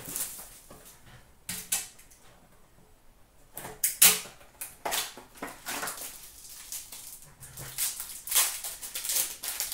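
Foil wrapper of a hockey card pack crinkling and being torn open by hand, in a series of short crackling rustles. The loudest come about four seconds in and again around eight to nine seconds.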